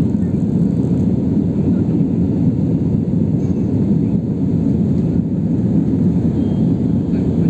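Steady low rumble of jet engine and airflow noise inside the passenger cabin of an Airbus A320-family airliner climbing after takeoff.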